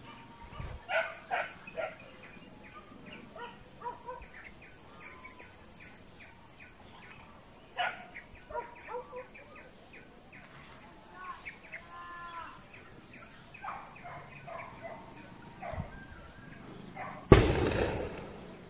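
A single gunshot near the end, sudden and the loudest sound, with a short echo trailing after it. Before it, faint scattered bird chirps come from the forest.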